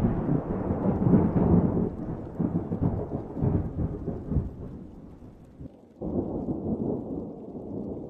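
Thunder rumbling and crackling, loudest at first and then fading over about five seconds, followed by a second roll of thunder about six seconds in.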